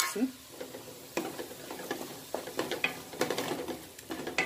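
Wooden spatula stirring and scraping a thick onion-tomato masala around a kadai, in irregular scrapes and taps, over a light sizzle of the masala frying.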